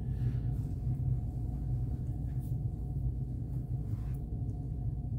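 Steady low rumble of a cruise ship cabin's background drone, with a faint steady tone above it. A towel being rolled and shaped by hand gives a couple of faint soft rustles, about two and a half and four seconds in.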